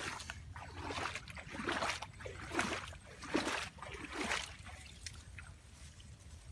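Irregular wet squelches and splashy rustles, about half a dozen in the first few seconds and then fewer: bare feet on a wet, muddy bank and bodies pushing into brush.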